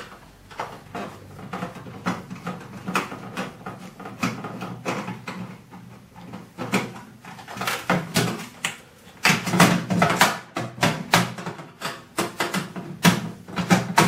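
Screwdriver working screws out of a microwave's sheet-steel casing: irregular metallic clicks, scrapes and rattles of the panel. They come thicker and louder in the second half.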